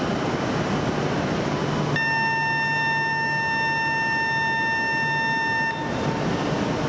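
A steady electronic warning tone sounds for about four seconds, starting and stopping abruptly: a departure signal for the E2 series Shinkansen at the platform. Under it runs the steady hum of the standing train and the station.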